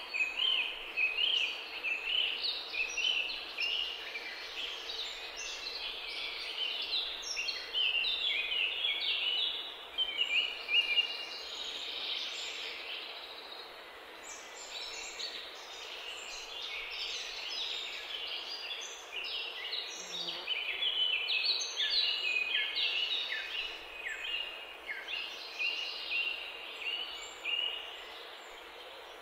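Birds chirping and peeping, many short high notes overlapping in a continuous chorus over a steady background hiss.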